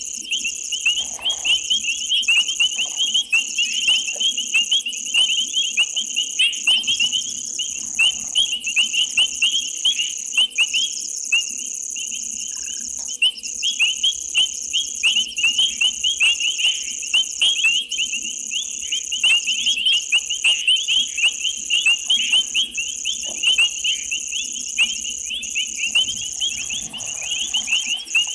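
Night chorus of frogs and insects: dense, rapid high chirping calls over a steady, higher-pitched insect drone, with a faint steady hum underneath.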